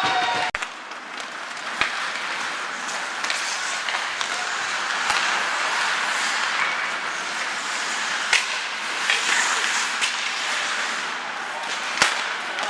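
Ice hockey play in a rink: a steady hiss of skates scraping the ice under faint voices, with about five sharp cracks of sticks on the puck or the puck hitting the boards, the loudest near the end.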